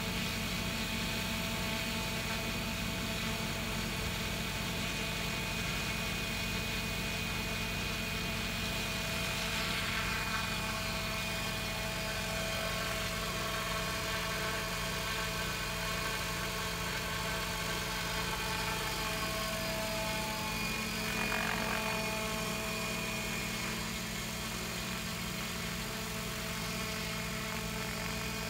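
XLPower radio-controlled helicopter running steadily as it lifts off and hovers, its rotor and drive giving a constant whine and hum. The pitch swings up and down briefly about ten seconds in and again about twenty-one seconds in.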